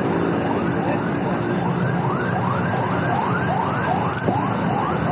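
A vehicle siren sounding in quick rising-and-falling sweeps, about three a second, over steady road traffic with an engine running.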